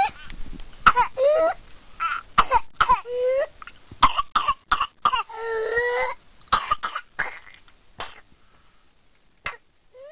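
A whooping-cough (pertussis) fit: a rapid run of short coughs broken by high-pitched, whooping gasps for breath, one long whoop about halfway through. The coughing thins out in the last couple of seconds.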